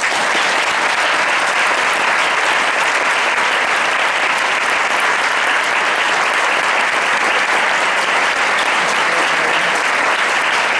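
Audience applauding, a dense, steady clapping that starts suddenly and keeps up loudly.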